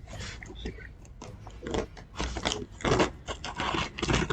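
Razor cutter slicing and scraping through packing tape on a cardboard box: a run of short, irregular crunching scrapes that grow busier and louder about halfway through.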